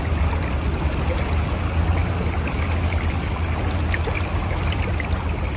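Mountain river flowing steadily over rocks, a continuous rushing with gurgles and small splashes over a deep low rumble.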